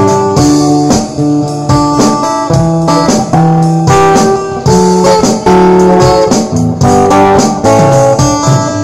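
Live band playing an instrumental passage without vocals: electronic keyboard chords over a strummed acoustic guitar, with the chords changing about once a second.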